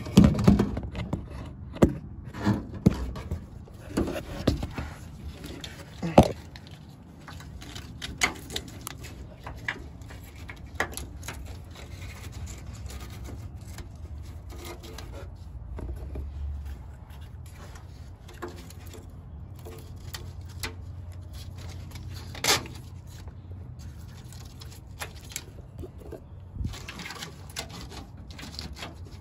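Hand work on a pickup's tail light wiring harness: scattered clicks, knocks and light scrapes of plastic sockets and harness parts being handled and fitted, busiest in the first several seconds, with a sharper knock a little over two thirds of the way through. A faint steady low hum runs underneath.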